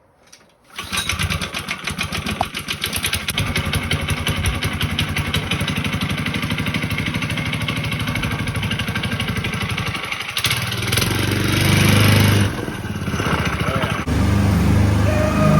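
A small engine starts suddenly about a second in and runs with a rapid, even firing beat. About ten seconds in it changes to a deeper, steadier drone.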